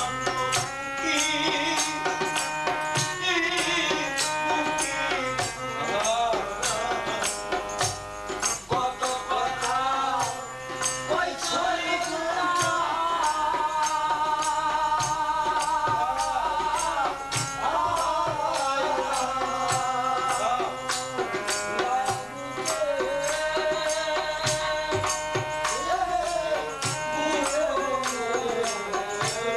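A Baul devotional folk song performed live: a man singing a bending, ornamented melody over a two-headed barrel drum and jingling hand percussion that keep a steady beat, with held instrumental notes underneath.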